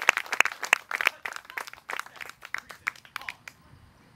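Applause from a small group: scattered hand claps that thin out and stop about three and a half seconds in.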